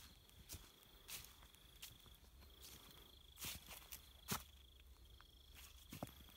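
Footsteps on fallen leaves and gravel, about one every half second, with a sharp step or knock a few seconds in. Behind them, a faint high-pitched insect trill runs steadily, breaking off twice for a moment.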